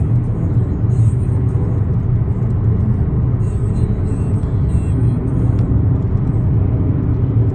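Steady low rumble of road and engine noise heard inside a car's cabin while driving at highway speed.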